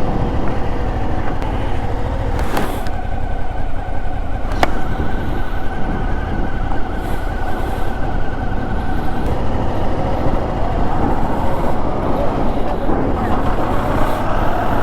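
Motorcycle running at road speed, heard through heavy wind buffeting on a helmet-mounted microphone from a strong headwind. Two short sharp clicks come a few seconds in.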